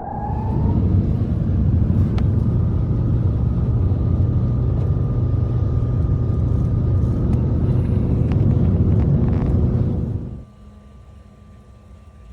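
A motor engine running steadily with a low rumble, which drops off sharply about ten seconds in, leaving a much quieter hum.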